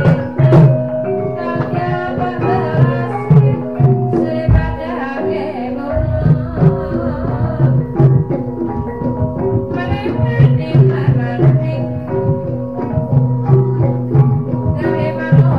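Javanese gamelan music: tuned metal percussion repeats a steady, interlocking pattern of notes over hand-drum (kendang) strokes.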